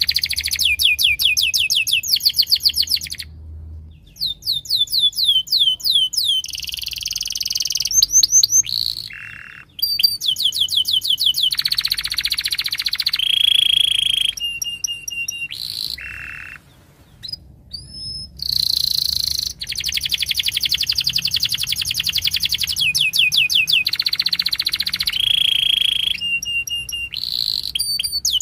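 Domestic canary in full song: a long, varied song of fast trills and rapid runs of repeated falling notes, high-pitched, broken by brief pauses between phrases.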